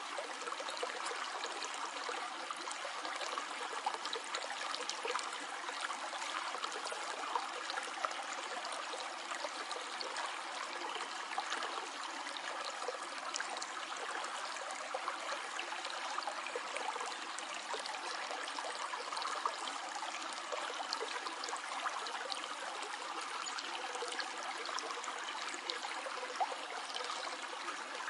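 Stream flowing, a steady, even rush of running water with no break or change.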